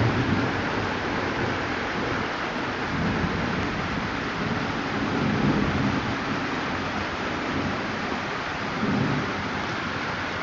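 Heavy rain falling steadily in a thunderstorm, with low thunder rumbling in slow swells several times through it.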